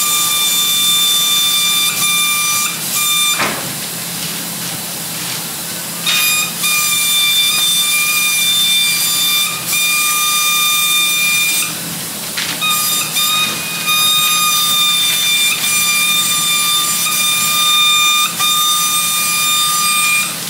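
Compressed-air paint spray gun spraying base coat: a whistling hiss with a steady high tone. It runs in long passes, stopping for a couple of seconds about three seconds in and briefly again around twelve seconds as the trigger is released.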